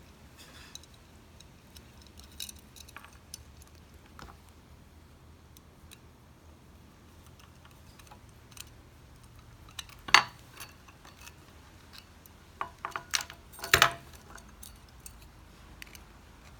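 Small metal lock parts clicking and clinking as the screw, tang and lock washer are worked onto the back of a display-case cam lock. There are scattered light clicks, with the sharpest clinks about ten seconds in and a quick cluster near the end.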